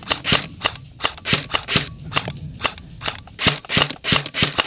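Airsoft guns firing single shots in an exchange of fire: sharp cracks at an irregular pace of about three to four a second.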